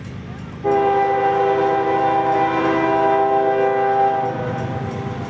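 Diesel freight locomotive horn sounding one long steady blast of about three and a half seconds, several notes at once, starting suddenly and cutting off cleanly. It is the horn of an approaching CSX train that is not yet in sight.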